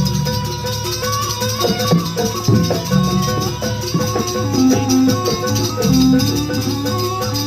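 Jaranan ensemble music playing live: a steady rattling percussion and drum strokes over held tones.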